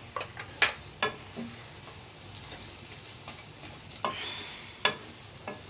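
A cooking utensil knocking and scraping against a kadai about six times as spiced mashed potato is stirred over the heat, with a faint frying sizzle under it.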